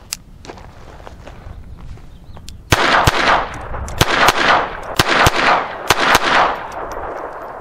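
Beretta 21A Bobcat .22 LR pocket pistol firing about eight shots of Winchester Super X hollow-point ammunition, roughly in quick pairs, starting near the middle. Each sharp crack is followed by an echo.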